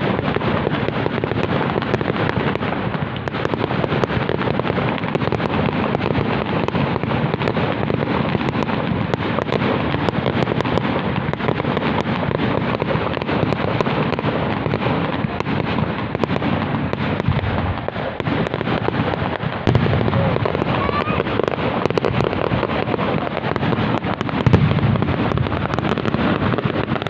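Fireworks display going off in a dense, continuous barrage of bangs and crackling, with a louder bang near the end.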